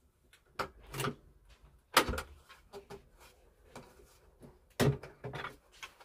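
Hard plastic clicks and knocks as the clear dust container of an Electrolux Easybox Plus bagless canister vacuum is unlatched and lifted off its base. The sharpest knock comes about two seconds in, with another pair of knocks near the end.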